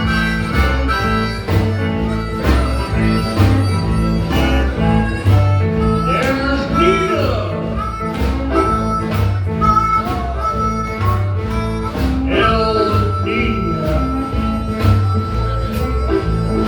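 Live blues band playing with a harmonica leading over guitar, bass and drums at a steady beat; the harmonica holds one long note through the second half.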